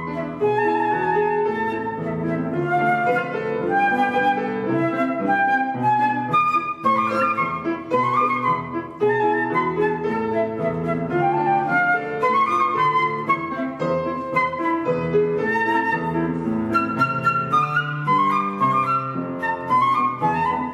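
Concert flute and grand piano playing a classical piece together: the flute carries a melody of quick, rapidly changing notes over the piano's chords.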